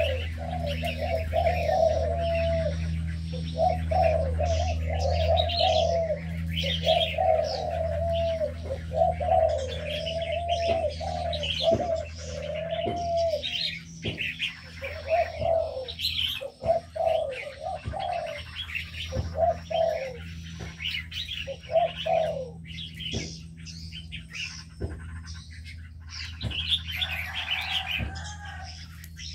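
Mixed aviary birds calling: doves cooing over and over, with smaller birds chirping higher up, and a steady low hum underneath. The cooing thins out in the last few seconds.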